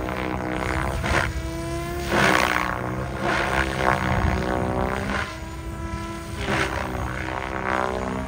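Radio-controlled helicopter flying aerobatics: a whining drive tone that rises and falls in pitch, with repeated whooshing surges from the rotor blades as it flips and turns.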